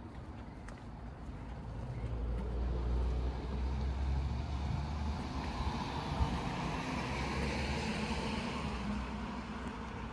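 A car driving past on the street, its engine rumble and tyre noise swelling over the first few seconds and easing off near the end. One sharp knock about six seconds in.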